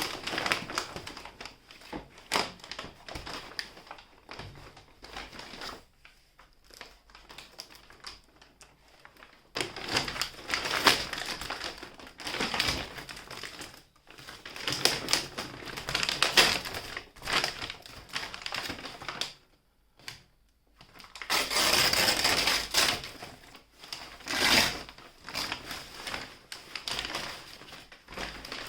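Packaging being handled by hand while shoes are unboxed: paper and cardboard rustling and crinkling with small clicks and knocks, in irregular bursts with short pauses.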